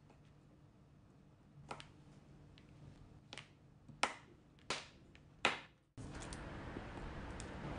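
Kitchen knife chopping a block of dark chocolate on a plastic cutting board: about five sharp knocks of the blade on the board, the loudest three close together in the middle. About six seconds in, the sound cuts abruptly to a steady hiss.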